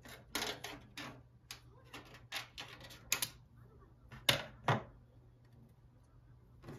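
Scissors cutting through paper in a quick run of crisp snips, then two louder knocks a little after four seconds in, over a faint steady hum.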